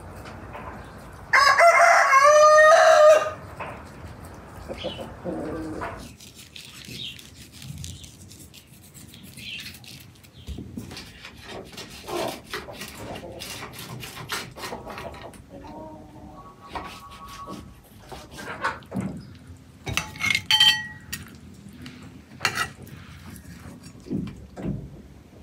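A rooster crows once, loud, about a second in. After that come scattered light clinks, taps and scrapes of a utensil against a pan as a baked dish is cut and served.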